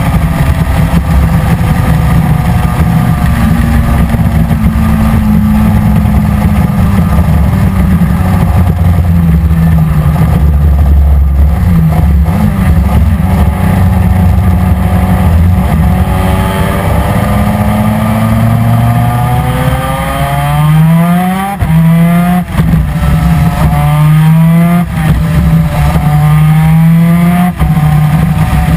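Superkart's 250 cc two-stroke twin-cylinder PVP engine at racing speed: it holds fairly steady revs for the first half, then revs up in a run of rising sweeps, each broken by a brief drop as it shifts up through the gears.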